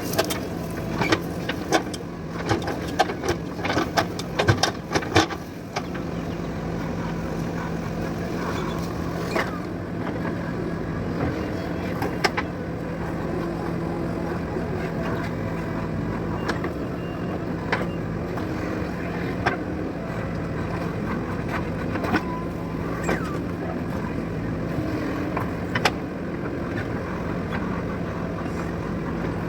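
JCB 3DX backhoe loader's diesel engine running steadily under work, with a quick run of sharp metallic clanks and knocks over the first six seconds and single knocks now and then after.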